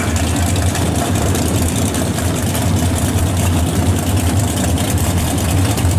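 Drag racing car engine idling, a low steady drone.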